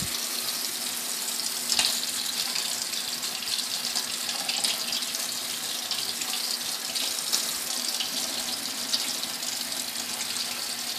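Water tap running steadily into a sink while an injured finger is rinsed clean under the stream.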